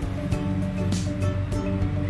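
Background music: held melodic notes over a light, regular beat.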